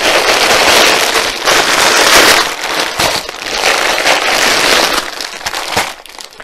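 Plastic courier mailer bag crinkling and rustling loudly as it is handled and opened, dying away near the end.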